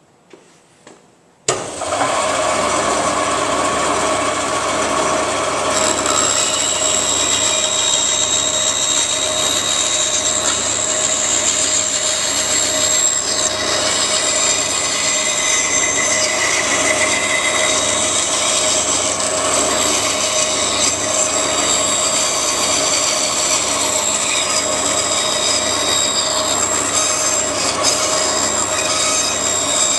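Band saw running and cutting through a wooden board along a gradual curve: a loud, steady sawing noise with a constant high whine that starts abruptly about a second and a half in.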